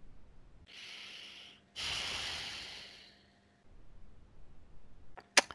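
A person breathing audibly: a short breath about a second in, then a longer, louder breath out that fades away over a second and a half. A short, sharp click comes near the end.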